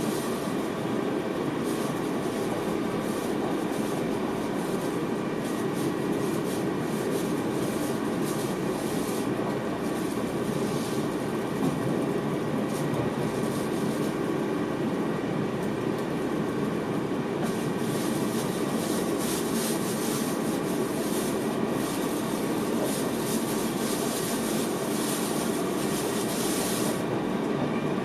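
NS VIRM double-deck electric train running along the line, heard in the driver's cab: a steady rumble of wheels on rail with faint steady tones. A higher hiss swells for about ten seconds in the second half.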